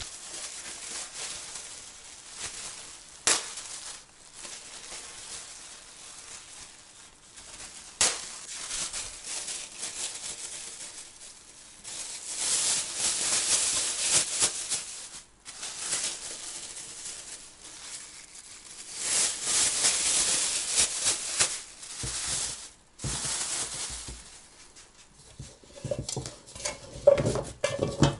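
Thin plastic bags crinkling and rustling as they are opened and handled, in spells of crackling with a few sharp clicks. Near the end, pieces of peeled horseradish root tumble from an aluminium bowl into a bag.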